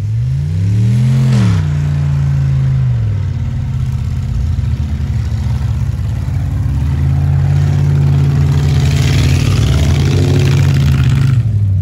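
Car engine revving up and back down about a second in as the car slides sideways through snow, then engines running hard under load with a hiss of spinning tyres and sprayed snow, strongest near the end as a pickup truck slides past.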